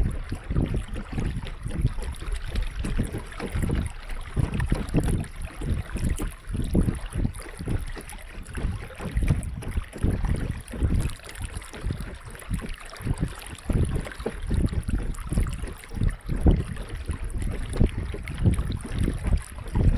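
Wind buffeting the microphone in uneven gusts, over water washing and lapping against a wooden boat's hull as it moves along the river.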